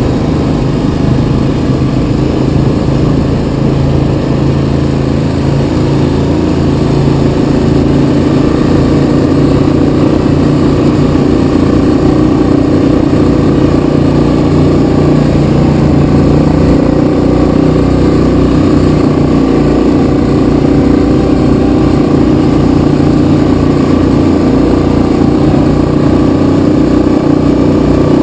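Yamaha Kodiak 700 ATV's single-cylinder engine running steadily while under way on a trail, a little louder from about eight seconds in.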